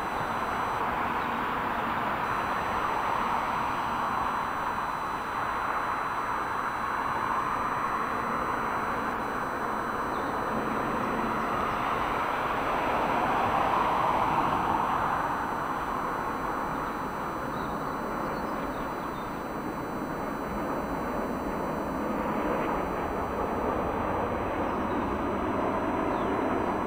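Jet airliner engines on arrival: a steady rushing noise that swells about halfway through, then eases off.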